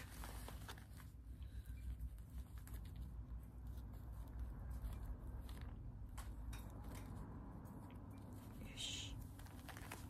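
Faint crinkling and crackling of a self-adhesive (cohesive) bandage being pulled and wrapped around a pigeon, with a brief hiss near the end.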